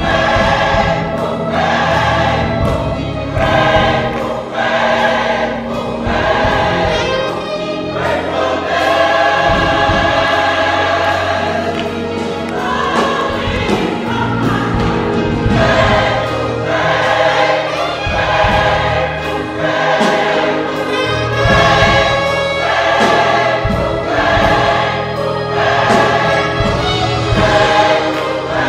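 Gospel choir singing, many voices together, over a bass line and a steady beat.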